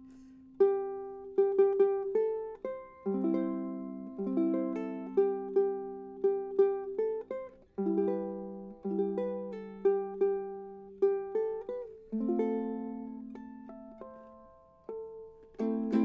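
Cedar-top, walnut-back Pohaku concert ukulele from 2008, played solo: plucked melody notes over ringing chords, each note ringing out and fading.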